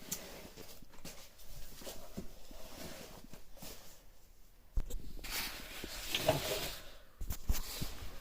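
Chickens moving about, with faint animal sounds and scattered light knocks and rustles, one sharper knock a little past halfway.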